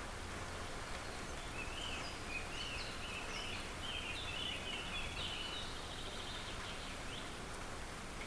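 Outdoor night ambience: a steady background noise with a run of short, high chirping calls between about two and seven and a half seconds in.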